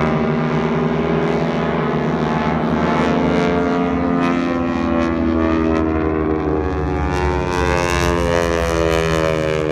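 Engines of a formation of display aircraft droning overhead, several pitches layered together. The pitch slides slowly down as they pass, and a higher note rises near the end.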